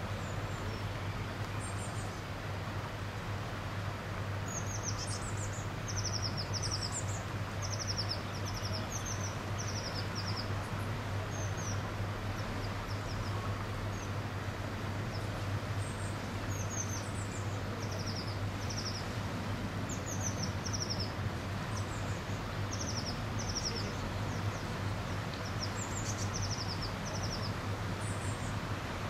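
A small songbird singing: short runs of high, quick, falling chirps, repeated one after another from about five seconds in, over a steady background hiss with a low hum.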